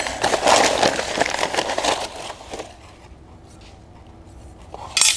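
Heavy brown kraft packing paper crackling as it is crumpled and pulled apart, dying down after about two and a half seconds, then a single sharp snap near the end.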